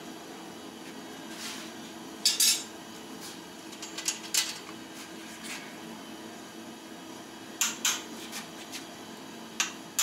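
Hand hammer striking hot steel on an anvil while forging an iron chest handle: a few scattered metallic blows with a short ringing clink, mostly in pairs, over a steady shop hum.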